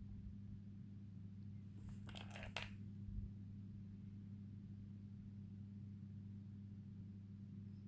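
A steady low hum, with a short burst of small crisp clicks and rustling about two seconds in, and a soft low thump just after.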